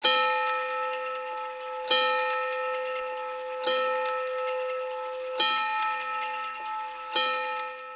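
A bell tolling five times, one strike about every 1.8 seconds, each stroke ringing on with a slowly fading, many-toned hum until the next.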